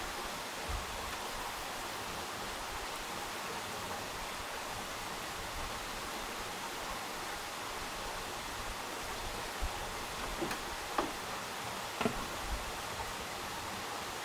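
Steady even hiss of background noise, with a few faint light knocks and clicks about three-quarters of the way through.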